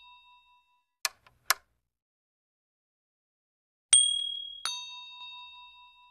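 Chime sound effects for an animated logo and end card. A ding is fading out at the start and two short clicks come about half a second apart. After a silent gap, two bright bell-like dings sound about three-quarters of a second apart near four seconds in, each ringing and fading away.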